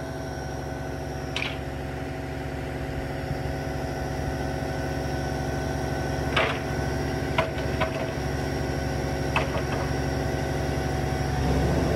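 Crane truck's engine running steadily while its crane lowers a concrete septic tank, growing a little louder toward the end, with a few brief short sounds over the drone.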